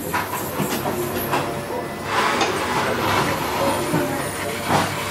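Jeweller's gas soldering torch hissing steadily, louder from about two seconds in, over a low workshop hum.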